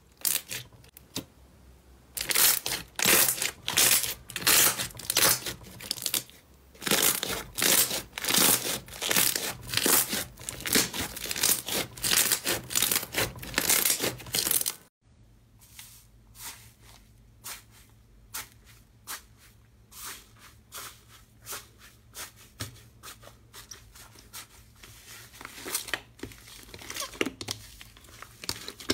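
Slime being squeezed and pressed by hand, making repeated crackling, popping squelches at about two a second. About halfway through it switches to quieter, sparser small pops and clicks.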